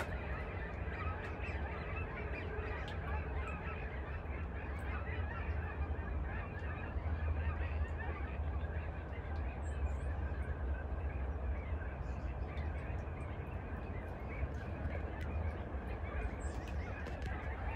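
A large flock of geese honking continuously, many calls overlapping into a dense chatter, over a steady low rumble.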